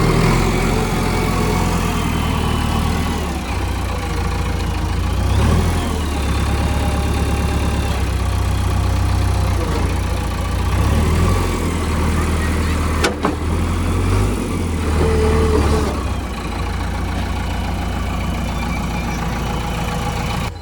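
Heavy diesel engine running, its revs rising and falling several times, with a single sharp knock about two-thirds of the way through; it settles to a steadier run over the last few seconds.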